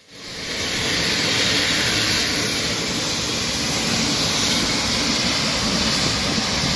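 Steam locomotive boiler blowdown: boiler water and steam blasting out under Buffaud no. 3714 in a loud, steady hiss that swells up in the first half second and then holds even. The boiler is being emptied to clean out its water circuits.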